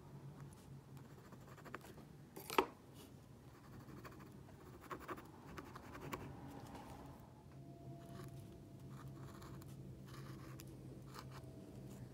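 Metal dip pen nib scratching short strokes on textured watercolor paper, with a single sharp tick about two and a half seconds in. A low, steady hum runs underneath.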